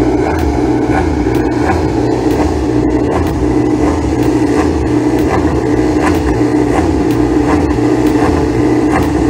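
A steady, loud engine drone running at a constant speed, with faint regular ticks about twice a second.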